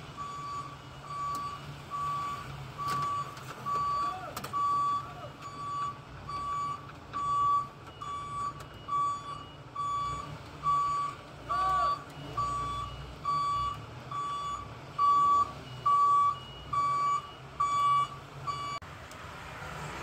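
Electronic warning beeper sounding a steady, evenly spaced single-pitch beep, a little more than one beep a second, that stops shortly before the end.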